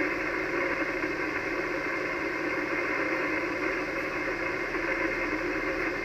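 Steady hiss of 80-metre band noise from an Icom HF transceiver's speaker, filling the narrow single-sideband receive passband between transmissions. It jumps up suddenly as the previous station stops talking, as the receiver's gain recovers.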